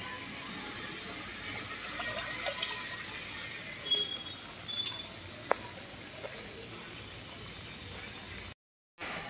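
Steady hiss of rain falling on a wet paved road, with a few faint clicks; the sound cuts out completely for about half a second near the end.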